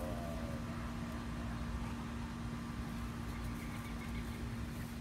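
Steady low background hum with a constant tone, like machinery running. A brief pitched sound comes right at the start, and a few faint high chirps come later.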